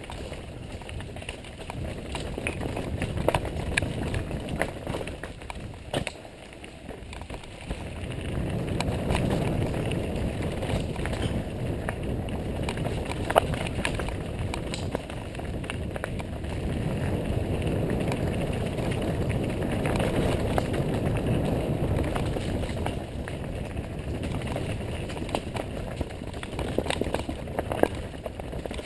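Downhill mountain bike descending a dirt trail: a steady rumble of tyres and rushing air that swells and eases, with frequent sharp clicks and knocks from the bike rattling over rough ground.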